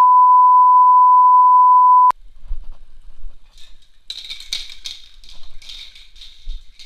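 A steady 1 kHz test-tone bleep, the kind played over TV colour bars, holds for about two seconds and cuts off abruptly. After it come fainter hissing and rattling sounds as a spray paint can is handled.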